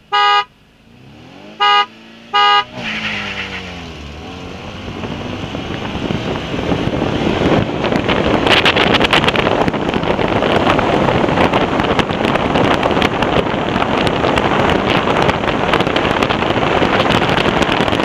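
Three short beeps, then two cars launching side by side and accelerating hard: a Honda Civic wagon's D15 non-VTEC four-cylinder with aftermarket intake and header against a stock Mazda RX-8's rotary engine. The engines rise in pitch as they rev, then give way to a loud, steady rush of engine and wind on an outside-mounted camera.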